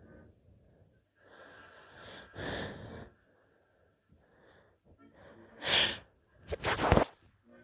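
A woman sniffling and taking breathy, hitching build-up breaths during a sneezing fit, then two sharp stifled sneezes close together near the end.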